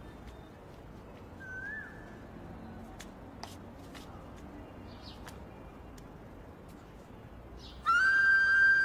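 Quiet outdoor background with a few faint bird chirps and light ticks. Near the end a long held note of background music comes in suddenly.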